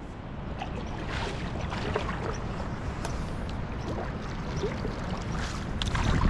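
Canoe being paddled: water swishing and dripping around the paddle and hull, with faint strokes every second or so and a light knock near the end.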